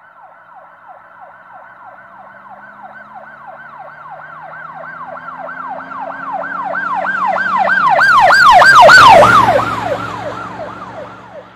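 Emergency vehicle siren in a fast yelp, about three falling sweeps a second. It grows steadily louder as it approaches, passes about nine seconds in with a drop in pitch, and then fades away.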